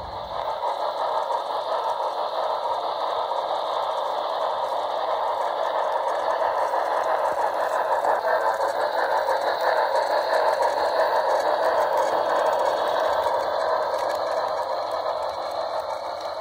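HO scale model train rolling along the track, its metal wheels and trucks making a fast, continuous clatter that grows louder toward the middle and fades near the end as the train passes.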